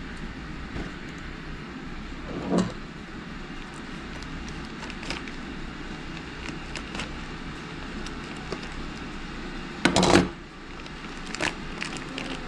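Vacuum-sealed plastic meat package being handled and snipped open with kitchen shears: scattered crinkles and small clicks over a steady low room hum, with a short louder rustle about two and a half seconds in. The loudest sound is a brief clatter about ten seconds in.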